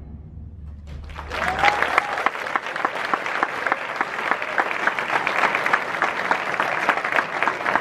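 Large audience applauding: the last of the music fades out, then dense clapping from hundreds of people starts about a second in and holds steady.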